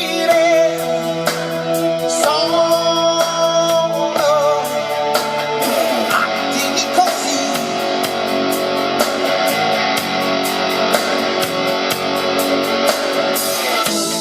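Instrumental break of an Italian pop song, led by a guitar, played back through MB Quart 1000 loudspeakers.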